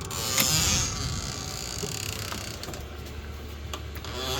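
Handling and creaking noises, then the steady low hum of a Vevor 5 kW 12-volt diesel heater running.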